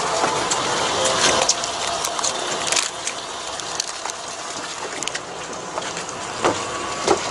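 Steady rushing noise on the open deck of a fishing boat, with scattered knocks and clicks from footsteps and handling as someone walks along the deck; a few sharper clicks come near the end.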